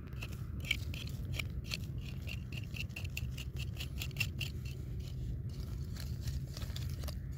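A small pocket knife's blade scraping and digging into dry, crusted soil in quick repeated scratching strokes, several a second, over a steady low rumble. The soil is dry and hard after a long drought.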